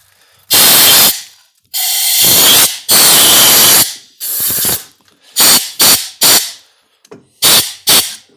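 Compressed-air blow gun fired in loud hissing blasts into a freshly drilled head-bolt hole to clear out the metal shavings. Four longer blasts of about a second come first, then five short ones.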